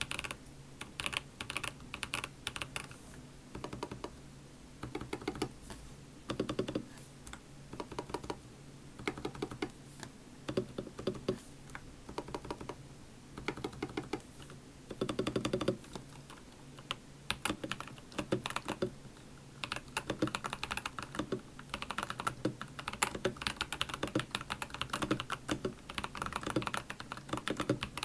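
Stock, unlubed Akko V3 Cream Blue tactile mechanical switches in a Tecware Phantom 104 Plus keyboard being typed on in runs of rapid keystrokes with short pauses, plus a few heavier, deeper key strokes. These unlubed switches are very loud, louder than a blue clicky switch.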